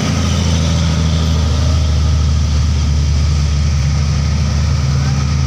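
Heavy diesel engine of a concrete mixer truck, running with a steady low drone as it climbs a hill.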